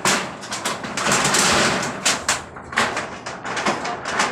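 Rapid irregular knocks and clatter, with a stretch of scraping noise about a second in, from workers tearing down a barracks.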